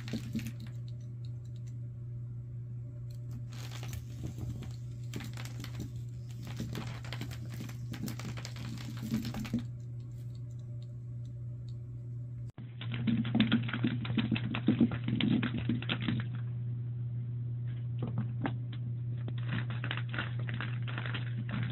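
Irregular, rapid clicking and rattling of a cat toy knocking against a hardwood floor as cats bat at it, over a steady low hum.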